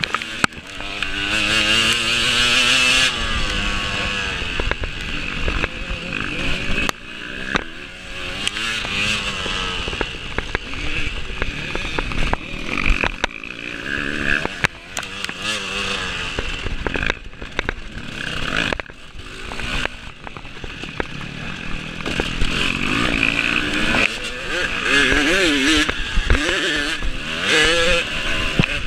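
Dirt bike engine revving up and dropping off again and again as it is raced, its pitch climbing and falling with each throttle opening and shift, with a few sharp knocks among it.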